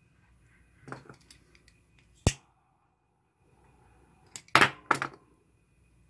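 Small metal clicks and clinks from handling the metal filament-welder block with filament in it. There are a few light clicks about a second in, one sharp click a little after two seconds, and a louder cluster of clicks near the end.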